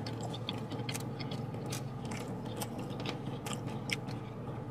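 Close-up chewing of a chicken Philly sandwich: irregular small mouth clicks and smacks over a steady low hum.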